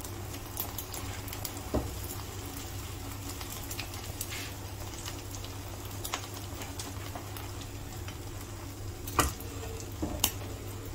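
Beaten eggs frying in a nonstick pan, a soft steady sizzle over a low hum, with a few light clicks of a spatula against the pan.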